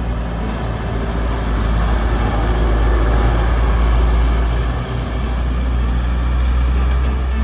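Bus engine running close by, a low steady rumble that grows louder over the first few seconds, dips briefly about five seconds in, then holds.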